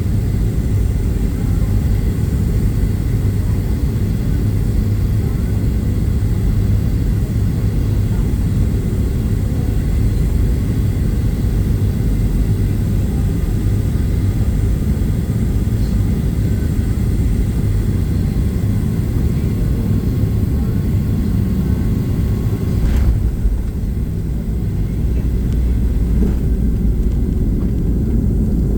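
Steady low rumble of a Boeing 737-800's engines and airflow, heard inside the passenger cabin. A single short thump comes about 23 seconds in, after which the rumble eases slightly for a moment.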